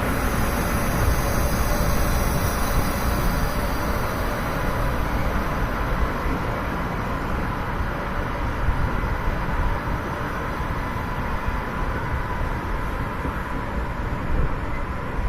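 Freight train hauled by an E200-series electric locomotive rolling into a station at low speed: a steady rumble of wheels on rail that eases slightly, with a faint steady high tone.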